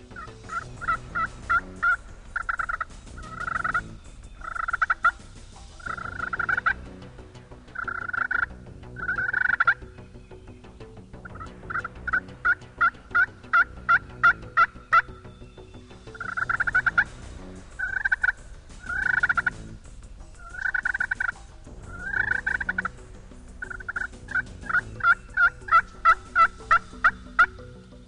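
Eastern wild turkeys gobbling again and again, with runs of quick, evenly spaced yelping notes; loud bursts come every second or two.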